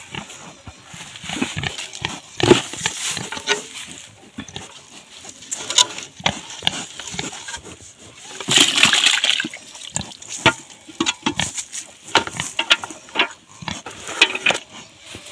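Wet pig feed sloshing and splashing as it is poured from a pot into a basin, loudest about eight to nine seconds in, among scattered knocks and pigs grunting.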